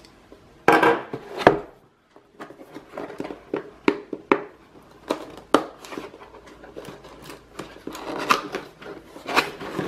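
Cardboard keyboard box being handled and opened on a wooden tabletop: a sharp clatter about a second in, then a string of short knocks, taps and scrapes as the box is turned on its side and fingers work at its end flap.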